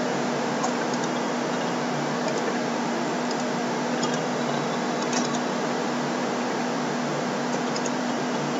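Steady recording hiss with a low hum, and a few faint, short computer mouse clicks scattered through it.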